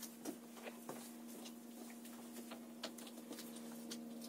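Faint scattered ticks and light knocks of a person moving about on a fiberglass boat deck, over a steady low hum.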